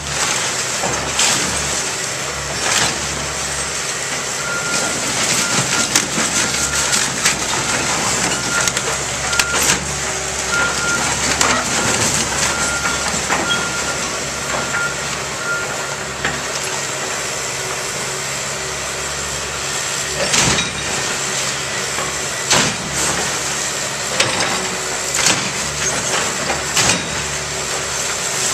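Excavator's diesel engine running steadily as its bucket crushes and drops the broken wood and siding of a demolished garage, with repeated sharp cracks and crashes of splintering debris. A backup alarm beeps about once a second for a stretch in the first half and again at the very end.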